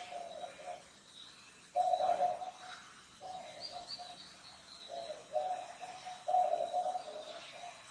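A bird calling with a low cooing call, repeated in phrases about a second long with short gaps between them.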